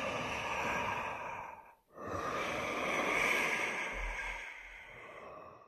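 Two long breathy whooshes of noise: the first fades out just before two seconds in, the second swells, then slowly dies away and is cut off abruptly.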